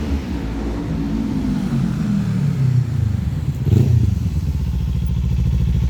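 Kawasaki Ninja 400 parallel-twin with an aftermarket WR exhaust, its engine note falling as the bike slows, a brief louder burst about four seconds in, then idling with a steady, even pulse.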